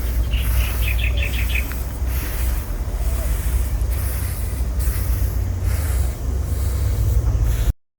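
Rice grain being raked and pushed across a drying surface: a hissing sweep that swells and fades about once a second, over a steady low rumble. A quick run of high chirps sounds in the first two seconds.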